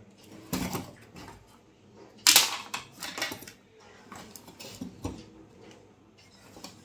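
Handling noise from soldering work on a TV main board: a few sharp clicks and clatters as the board and tools knock against the TV's sheet-metal chassis. The loudest clatter comes about two seconds in.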